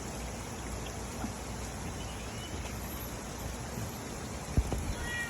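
Steady rain falling, with scattered drips and one sharp knock about four and a half seconds in; a faint high call starts near the end.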